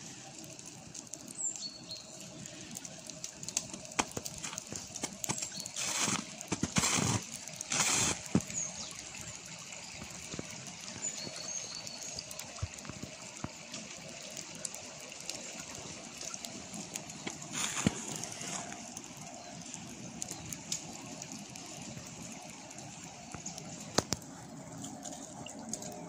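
Small forest brook trickling steadily with snowmelt, with birds chirping now and then above it. A few louder rustling bursts come about six to eight seconds in.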